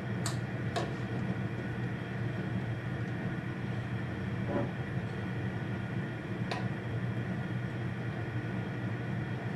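Steady low rumble of a propane burner's flame under a pressure canner, with three sharp clinks of glass canning jars being set down inside the pot.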